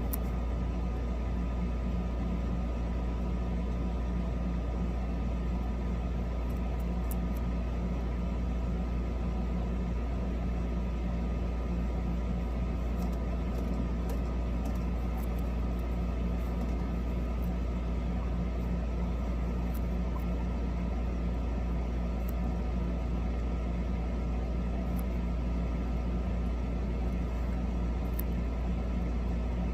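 A steady low hum with a few constant tones running through it, unchanging in level, with faint scattered ticks on top.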